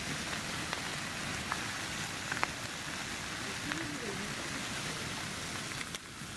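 Korean beef (hanwoo) sizzling on a hot black griddle pan: a steady frying hiss with a few sharp pops scattered through it.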